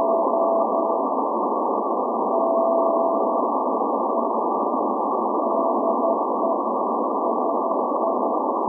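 Morse code from the SVO Athens maritime station's channel marker on 8424 kHz shortwave, received in CW mode: a steady tone of about 700 Hz keyed on and off in dots and dashes, sending the call letters SVO. It rides on a constant hiss of shortwave static, narrowed by the receiver's CW filter.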